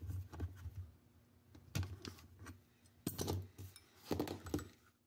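Metal hand tools working on a pistol slide: an Allen wrench and slip-joint pliers clinking against the steel parts and set down on a table, a few scattered clicks and knocks.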